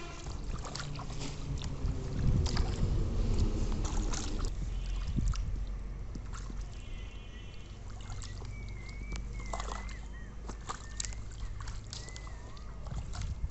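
Hands sloshing and splashing in shallow muddy water, groping through the mud for fish, a string of short wet splashes over a steady low rumble. The splashing is busiest between about two and five seconds in.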